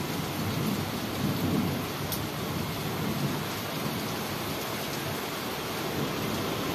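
Steady rushing noise with a churning low rumble, and one faint click about two seconds in.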